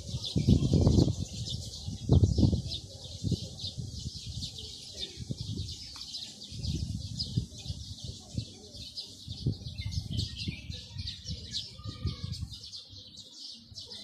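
A flock of sparrows chirping continuously in a dense chatter of quick, high notes. Heavy low rumbling thumps come in the first two and a half seconds, with lighter low knocks after that.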